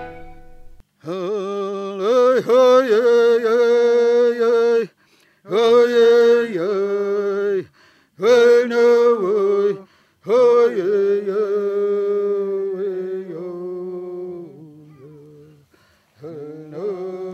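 A solo voice sings an unaccompanied chant in about five long held phrases, with short breaks for breath in between. The pitch is mostly steady with small turns, and one phrase fades away shortly before the last one begins.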